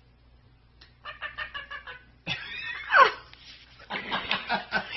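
Quaker parrot imitating a chicken, giving runs of rapid clucking pulses with a loud squawk that falls in pitch about three seconds in.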